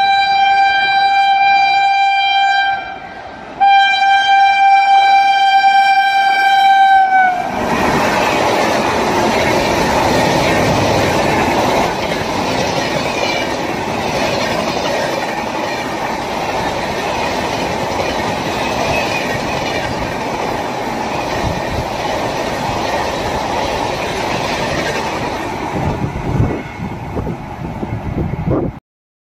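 Indian Railways locomotive horn sounding two long blasts on one steady pitch, the second a little longer. The train then runs past with a loud, even rolling noise that lasts about twenty seconds.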